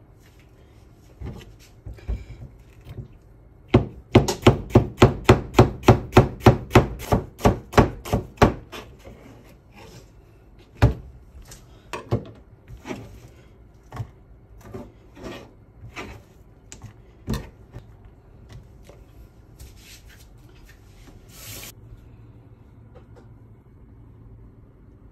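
Kitchen knife slicing a peeled onion on a cutting board, each cut ending in a knock on the board. It starts with a few single cuts, then a quick run of about four chops a second, then slower, spaced cuts.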